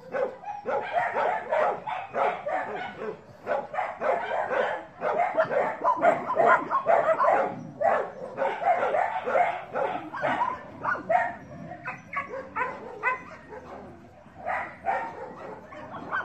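Dogs barking and yipping over and over.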